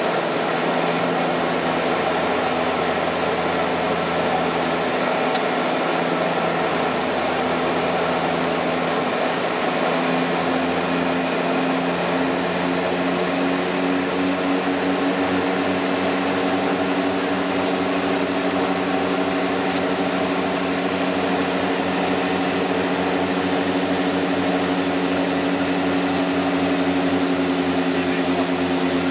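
Cabin drone of a DHC-6 Twin Otter's twin PT6A turboprop engines and propellers in flight, heard from the cockpit: a steady loud hum with a high turbine whine. The low drone takes on a rhythmic throb from about halfway through, and the whine steps slightly lower a couple of times near the end.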